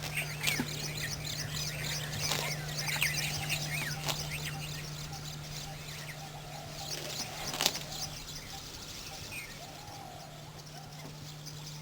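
Several birds chirping in quick, short, high calls, busiest in the first half, over a steady low hum, with a sharp click about two thirds of the way through.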